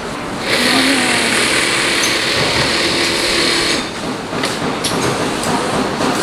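Industrial post-bed sewing machine running steadily for about three seconds, starting about half a second in and stopping abruptly; a lower background of machine noise from the room continues around it.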